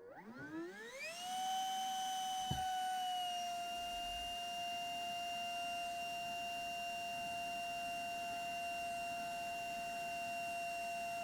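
Electric motor and fan of an RC jet spooling up with a rising whine over about the first second, then holding a steady high-pitched whine at full power. A single sharp click sounds about two and a half seconds in.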